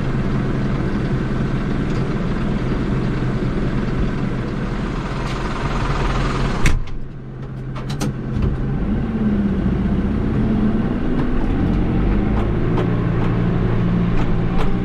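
New Holland TD75 tractor's diesel engine running steadily, heard from inside the cab. About seven seconds in there is a click and the sound suddenly drops, then builds back up, and after that the engine's pitch rises and falls.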